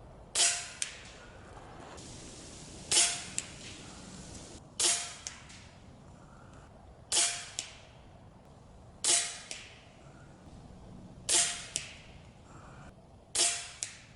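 Snowpeak M60 PCP air rifle fired seven times in a steady string, a sharp crack roughly every two seconds, each shot followed about half a second later by a fainter click.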